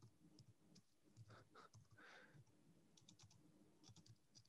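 Faint key clicks of a computer keyboard, typing in short, scattered runs.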